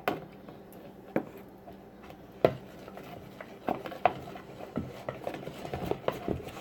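A spoon stirring slime in a bowl, with irregular knocks and clinks of the spoon against the bowl.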